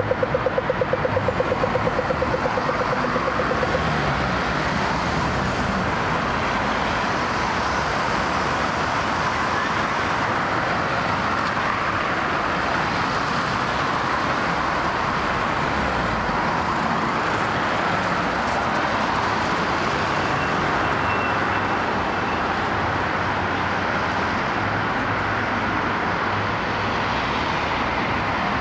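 Steady road-traffic noise, with a fast-pulsing tone over it for the first few seconds that stops about four seconds in.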